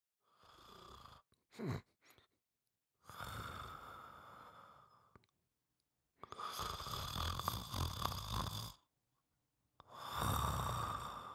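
A person snoring: four slow breaths about three seconds apart with silent pauses between, the later ones with a low rattle. A short falling swoop comes between the first two breaths.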